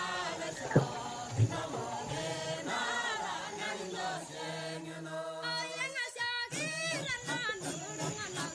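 Choral singing laid over the footage as music: several voices chanting together in layered, shifting pitches. Two short low thumps about a second in are the loudest moments.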